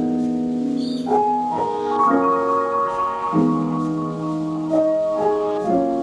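Slow background music of sustained piano notes, the chord changing about once a second.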